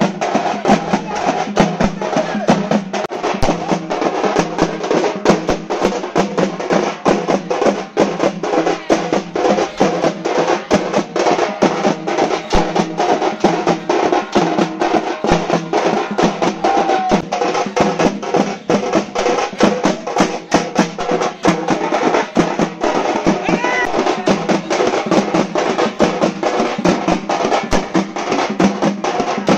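Several parai frame drums beaten with sticks in a fast, continuous rhythm of sharp strikes.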